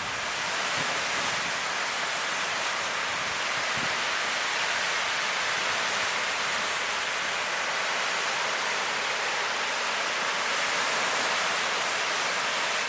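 Ocean surf breaking and washing onto a beach: a continuous hiss of waves that swells slightly near the end.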